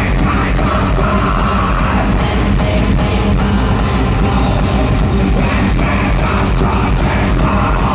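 Industrial electronic band playing live through a loud PA: a steady, heavy electronic beat with guitar and shouted vocals over it.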